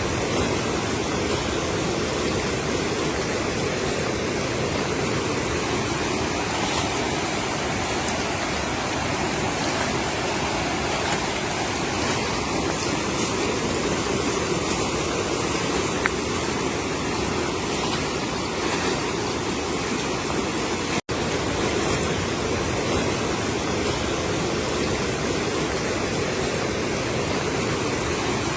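Flash-flood water rushing steadily in a swollen torrent, a continuous loud noise. It breaks off for an instant about three-quarters of the way through.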